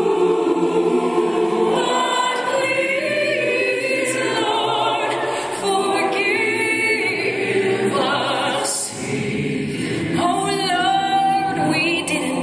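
Large mixed choir singing a cappella in sustained chords, with a female soloist's wavering voice rising above it in places.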